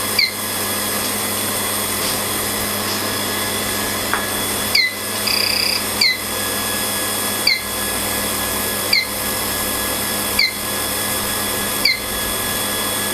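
Copper-tube welding machine running steadily, with a short click and chirp repeating about every one and a half seconds as it cycles. A brief beep sounds about five seconds in.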